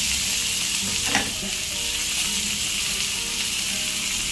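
Food sizzling steadily in hot oil in a pan.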